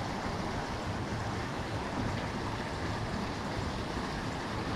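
Steady rush of water spilling over a small concrete ledge into a channel, an even, unbroken hiss.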